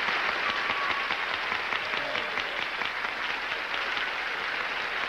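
Studio audience applauding steadily, with a few faint voices beneath it.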